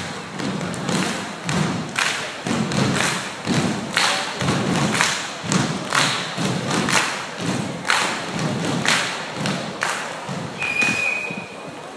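A group of performers stomping in unison on a wooden stage, a steady beat of thumps about two a second. A short high whistle sounds near the end.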